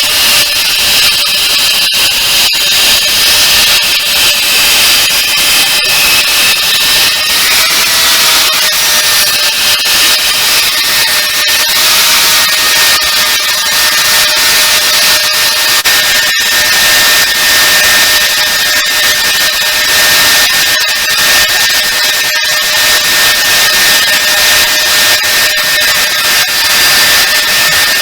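Angle-grinder-driven belt sander (a 180 mm Metabo grinder turning an abrasive belt) running and grinding, a loud harsh hiss over a steady high motor whine that sags slightly in pitch a few times under load.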